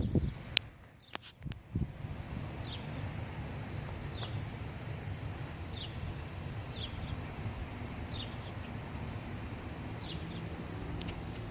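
A bird calling a short falling chirp about seven times, every one to two seconds, over a steady low outdoor rumble; a few sharp clicks sound in the first two seconds.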